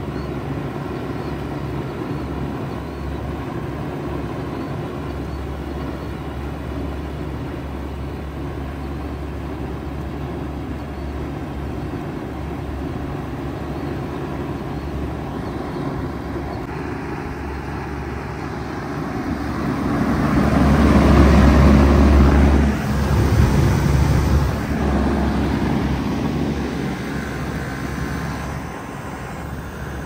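2006 Bard wall-hung heat pump running in cool mode: a steady low hum from the compressor with the outdoor fan's rush. From about twenty seconds in, a louder rushing sound swells, peaks and fades over several seconds.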